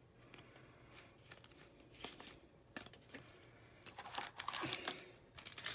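Crinkling of a plastic trading-card pack wrapper being handled, with faint ticks of cards. The crinkling gets louder in the last two seconds.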